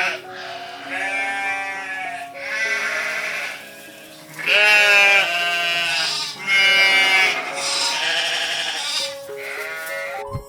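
Sheep bleating over background music: about six separate quavering bleats, each around a second long, one after another.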